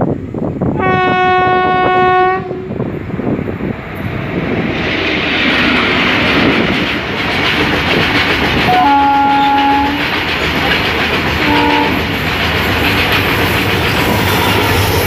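WDP-4-series diesel locomotive hauling an express passenger train, approaching at speed and passing close by. A long horn blast sounds about a second in, then a shorter, lower-pitched blast near the middle and a brief toot soon after. Under the horn the rumble of engine and wheels grows, and the wheels clatter over the rail joints as the locomotive comes level near the end.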